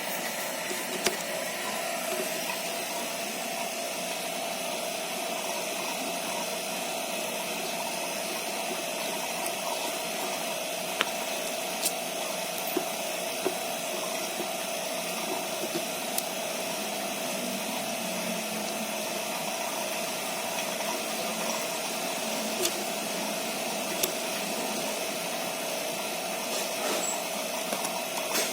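A refrigeration vacuum pump runs steadily while it evacuates a split-type aircon system, with a dozen or so sharp clicks of tools and parts being handled.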